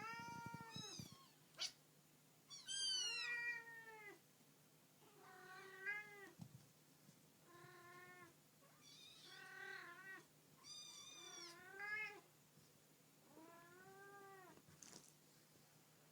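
Birman kittens meowing: about eight short, high meows, each under a second, coming every second or two.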